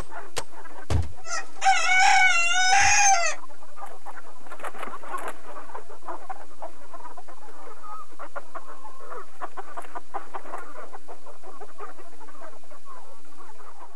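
Chicken sounds: a loud, wavering rooster crow lasting about a second and a half around two seconds in, followed by a long run of scattered clucking that fades out at the end.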